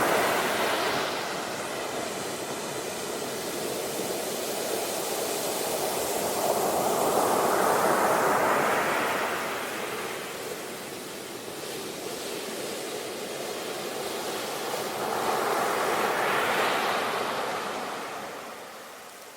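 Sea waves breaking and washing in, a surge of surf swelling and falling away about every eight seconds.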